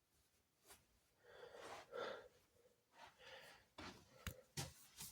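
Near silence with faint breaths and a few soft clicks.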